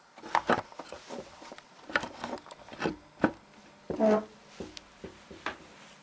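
Handling noises from an upright vacuum cleaner being readied to plug in: scattered plastic clicks, knocks and rubbing of the cord and body, with a short squeak about four seconds in. The motor is not running.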